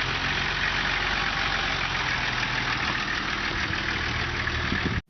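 Vehicle engine idling steadily, cutting off abruptly near the end.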